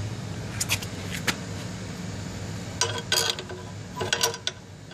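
Small metal hardware clinking and tapping as a T-nut and wing nut are fitted by hand to a lathe's wheel bracket: a few scattered clicks, then two short clusters of ringing clinks about three and four seconds in, over a steady low hum.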